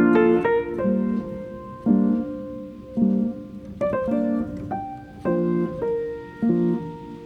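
Background music: piano chords struck in a steady rhythm, about one a second, with a held melody note above.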